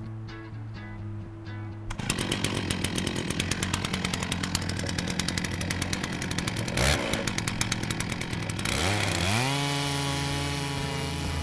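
A chainsaw in a portable chainsaw-mill jig ripping lengthwise through a log, starting about two seconds in with a dense, rapidly pulsing cutting noise. Near the end the engine pitch climbs and then holds steady. Background music plays underneath.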